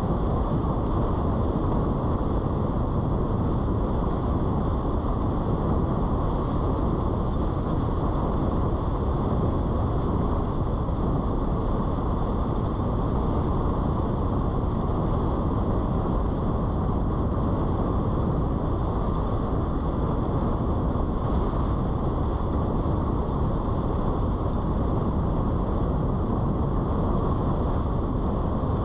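Steady road noise of a car driving at an even speed: tyres rolling on asphalt and wind rushing past, an unbroken low rumble with no changes.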